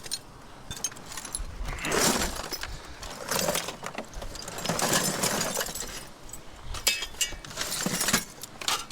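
Small pieces of scrap metal, rusty screws among them, clinking and rattling as they are rummaged through by hand, coming and going in irregular spells.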